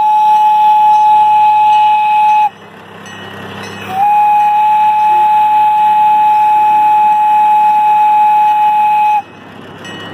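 A gasoline-powered miniature train locomotive's whistle blowing twice, really loud: a blast of about two and a half seconds, then after a short pause a longer one of about five seconds, each held on one steady pitch.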